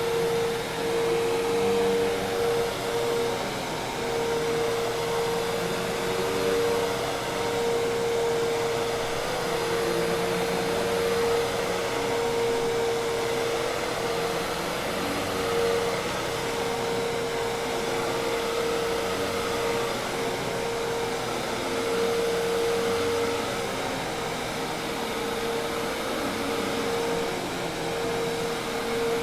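Hoover Task Vac commercial vacuum cleaner running steadily: an even rush of air with a constant motor tone, no stops or restarts.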